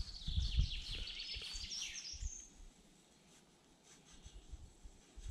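A songbird singing a quick run of high chirps and trills with rising notes, lasting about two and a half seconds, over low irregular thumps on the microphone; then only faint outdoor ambience.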